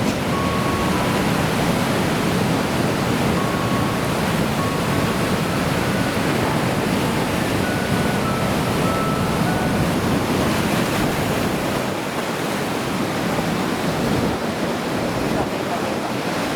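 Heavy ocean surf from typhoon swell: a steady wash of breaking waves, with some wind on the microphone.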